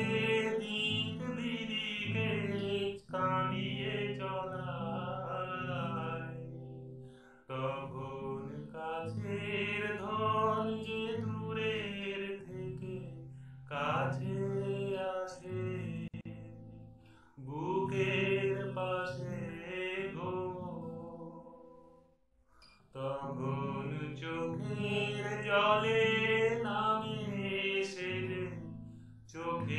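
A man singing a slow Bengali song in long, drawn-out phrases to his own strummed acoustic guitar, the phrases broken by short pauses every few seconds.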